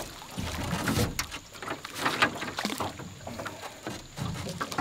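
Dead branches and twigs snapping, cracking and rustling as they are grabbed and pushed aside at the bow of a small boat, a string of short irregular cracks.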